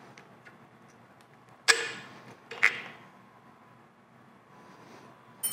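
Sharp metallic clinks of small steel parts, a hex key and thrust bearing pieces, knocking together as a lathe power compound is taken apart: two loud clinks about a second apart, light ticks between, and a ringing clink at the very end.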